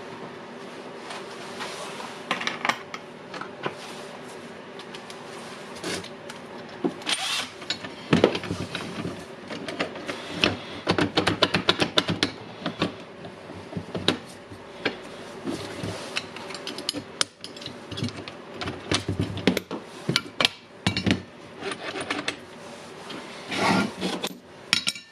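Irregular clicks, knocks and rattles of plastic and metal parts as a Makita cordless angle grinder is handled and taken apart, coming thicker about a third of the way in. No motor is heard running.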